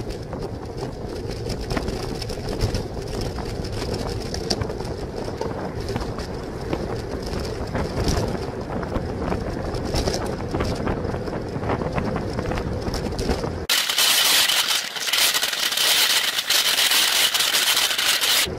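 Wind and road noise on a bicycle-mounted camera's microphone while riding. About 14 seconds in it cuts abruptly to a louder, hissier rush of wind.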